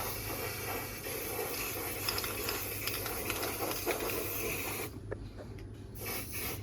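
Spray paint hissing in one long, steady spray as a rust-protection coat goes onto freshly welded bare metal; it cuts off about five seconds in.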